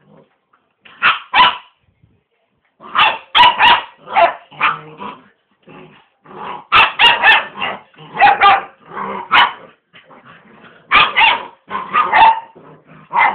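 Six-and-a-half-week-old American Akita cross puppies barking and yapping in play: short, high-pitched barks in quick clusters, with brief lulls between them.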